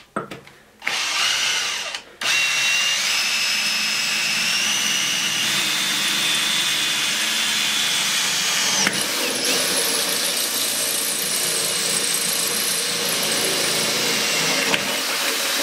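Einhell TE-CD 18/50 Li-i BL cordless brushless drill in plain drilling mode, boring with a metal bit through a 2 mm thick metal profile. Two short starts, then a steady run with a high whine that shifts pitch a few times, stopping at the end.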